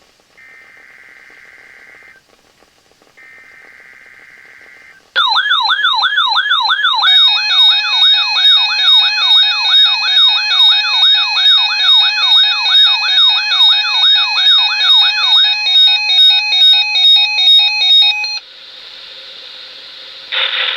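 Weather radio test alert: two short buzzy data bursts of the SAME header tones, then about five seconds in a weather alert receiver's loud alarm starts, a rapid warbling siren with repeated beeping tones over it. The alarm cuts off a couple of seconds before the end, leaving a quieter hiss.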